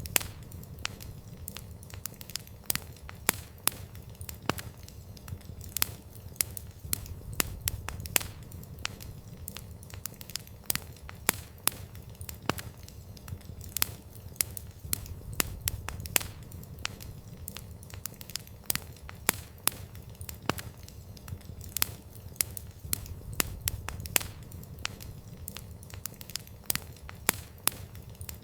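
Campfire wood burning, with frequent irregular sharp pops and crackles over a low, steady rumble of the flames.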